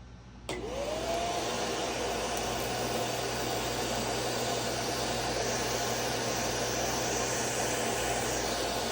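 Bissell Little Green Max Pet portable carpet and upholstery spot cleaner switched on about half a second in: its motor whine rises as it spins up, then it runs steadily with a loud suction rush.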